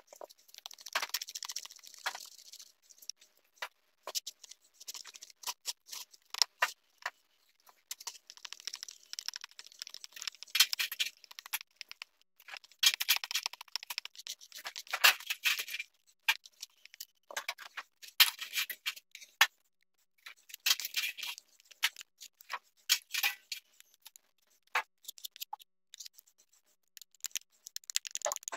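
A flat tool scraping across cardboard as epoxy resin is stirred and spread, in uneven scratchy strokes that come in runs of a few seconds with short pauses between.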